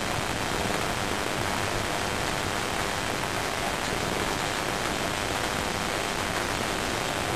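Steady rain during a thunderstorm, an even hiss with no thunder claps.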